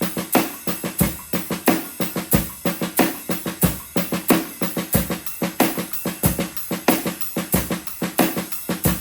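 Drum kit played in a steady groove: bass drum and snare hits under a continuous cymbal pattern, with regularly recurring louder strokes among quieter ones.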